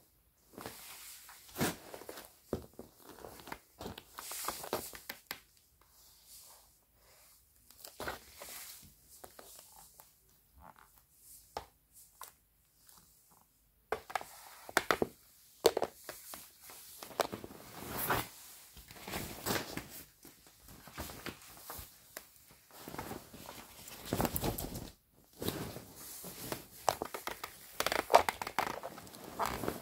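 Shiny plastic sheeting and vinyl crinkling and rustling in irregular bursts as someone moves against it, with a few sharp clicks, busier in the second half.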